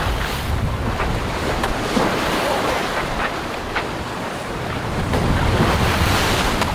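Wind buffeting the microphone and the sea rushing along the hull of a racing sailboat under way. The rush swells louder about five seconds in.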